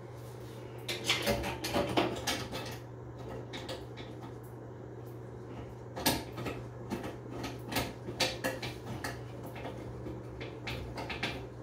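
Light irregular clicks and scrapes of a metal bathtub overflow cover plate and its screws being fitted back on by hand, in a cluster about a second in and again through the second half, over a steady low hum.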